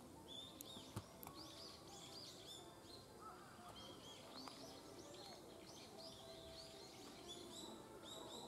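Faint chirping of many small birds: short, arching notes repeated over and over. A single sharp click about a second in.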